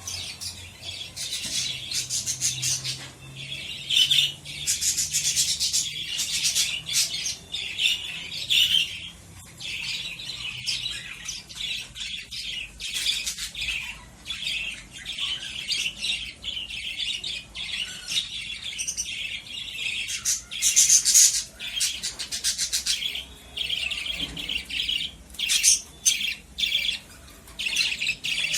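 A roomful of caged lovebirds chattering, with dense, rapid, shrill chirps and squawks running on without a break.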